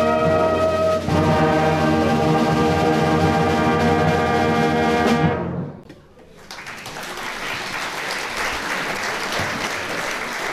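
Wind band of saxophones and brass playing sustained chords; the music ends a little over five seconds in, then audience applause.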